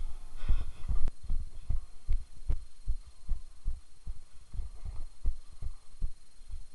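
Footsteps of a player moving through an indoor airsoft field, picked up as low thuds on the body-worn camera at about two to three a second. A few sharp clicks are heard among them.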